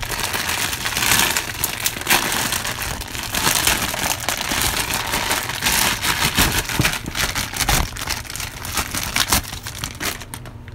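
Plastic packaging of a power supply's modular cable pack crinkling and rustling as it is opened and the cables are handled, with many scattered clicks; it eases off near the end.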